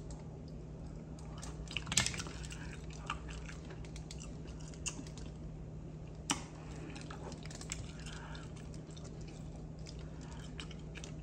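A person eating black mussels: soft chewing and wet mouth sounds, with a few sharp clicks, the strongest about two seconds in and another a little past six seconds, over a steady low hum.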